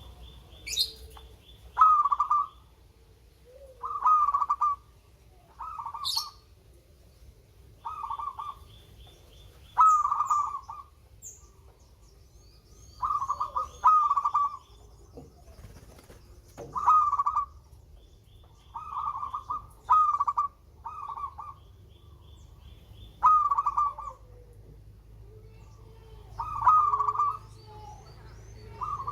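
Zebra dove (perkutut) cooing: short rippling coo phrases repeated every second or two. Smaller birds chirp more faintly and higher between the coos.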